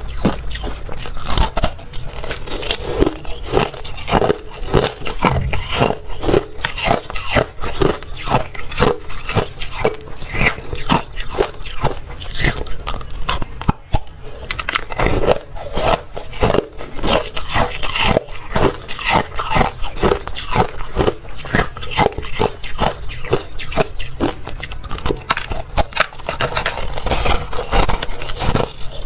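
Close-miked hard ice being bitten and chewed: a steady run of sharp, crisp crunches and cracks, easing briefly about halfway through.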